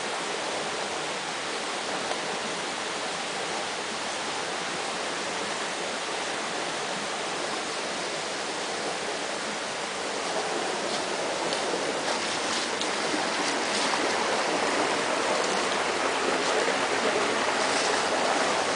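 Water rushing over the overflow of a concrete spring-water intake and spilling into a stone channel. It is a steady rushing that grows louder through the second half.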